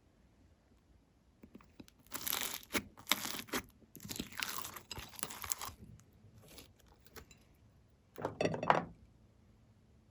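Plastic piping bag crinkling and tearing as it is handled, in three crackly stretches: about two seconds in, again from about four seconds, and a short one near the end.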